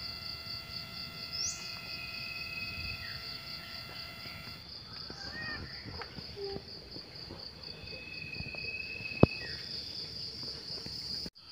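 Insects trilling steadily in a high, pulsing chorus, with a few brief bird chirps and a single sharp click about nine seconds in.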